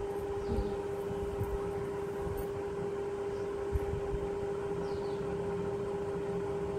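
Steady mechanical hum with one constant mid-pitched tone, under soft intermittent rustling of cotton cloth being handled.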